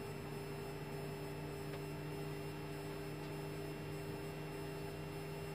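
Steady hum in an Airbus A320neo cockpit with only engine 2 running at idle: a few steady low tones over a faint, even hiss.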